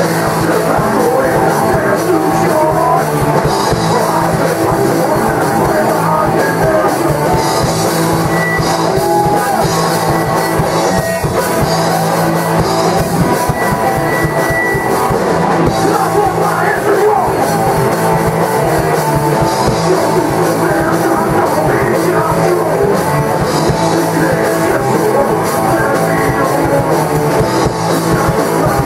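Live heavy metal band playing loud: electric guitars, bass guitar and drum kit, with singing over them.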